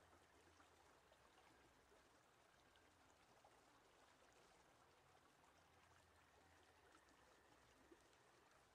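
Near silence: a faint, even hiss with no distinct sound in it.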